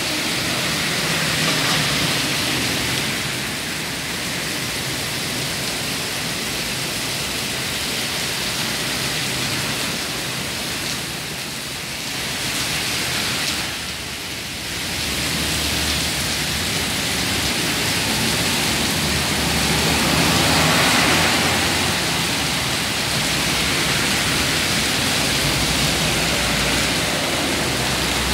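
Heavy rain falling steadily on a city street, with vehicles driving past on the wet road. A low engine hum joins in about halfway through.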